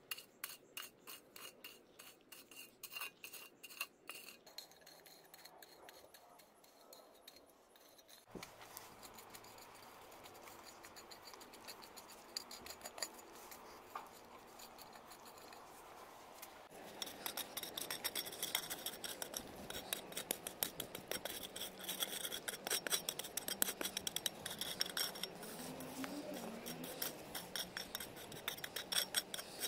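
A homemade hoe, its blade cut from an old frying pan, scraping and chopping through dry, crumbly soil in repeated strokes. The strokes are separate at first, then give way to quieter rasping, and about two-thirds of the way in they turn into a fast, louder run of scraping.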